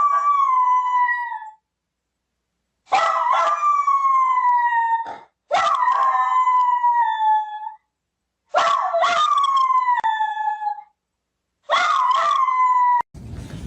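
Dog howling: five long, drawn-out howls of about two seconds each, each sliding slowly down in pitch, with short silent gaps between them.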